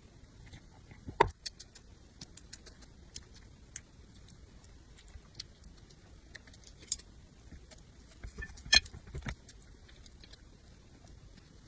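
Close-miked eating sounds: scattered small clicks and mouth noises, with two louder knocks, one about a second in and one near nine seconds, like a utensil against a dish.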